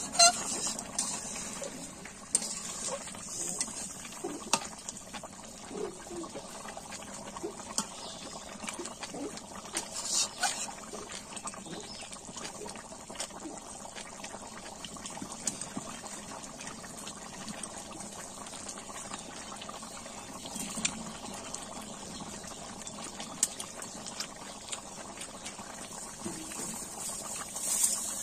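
Chicken curry bubbling at a boil in an iron kadai over a fire, with a steady wet simmer and scattered small pops and ticks. A ladle stirs through it right at the start.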